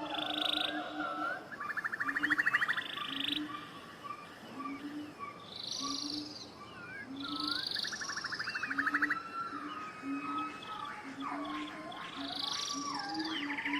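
Many animals calling at once, like a rainforest chorus: birds whistling and trilling over a low croak-like note that repeats about every 0.7 s.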